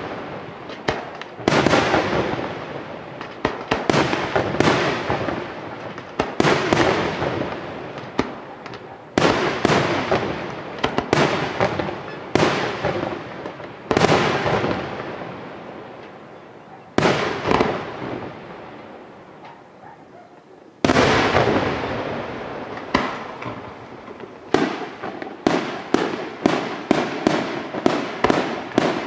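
Aerial firework shells bursting one after another every second or two, each bang trailing off in a long echoing fade. A quicker run of bursts follows near the end.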